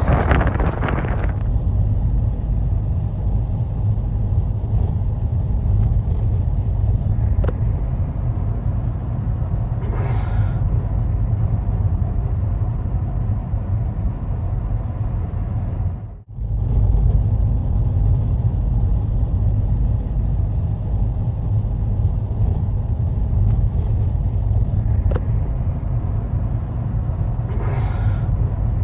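Snowstorm wind blowing in a steady low rumble, dropping out for an instant about sixteen seconds in, with two brief hissing gusts, one near the middle and one near the end.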